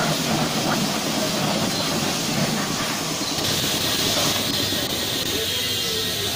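Pressure washer spraying water onto a car: a steady hiss of the water jet over a running pump, its tone changing abruptly about three and a half seconds in.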